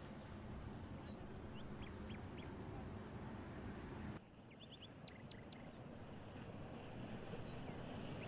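Small birds giving short, high chirps in small clusters over a steady low rumble, with the background dipping briefly about four seconds in.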